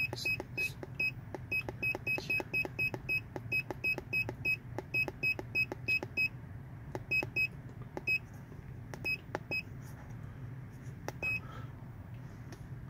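Autel MaxiTPMS TS408 TPMS tool giving a short high key beep with a faint button click for each press, about three a second as its vehicle list is scrolled. After about six seconds the beeps thin out to a few scattered presses.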